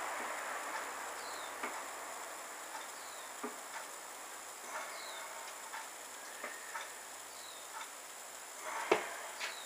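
Plastic mash paddle stirring water in a cooler mash tun, with scattered light knocks of the paddle against the cooler's plastic walls and one sharper knock near the end.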